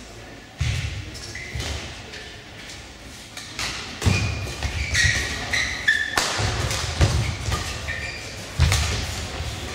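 Badminton rally: players' feet thudding on the court as they lunge and move, rackets cracking against the shuttlecock, and shoes squeaking on the court mat. The thuds come sparsely at first and then quickly, about once a second, once the rally gets going.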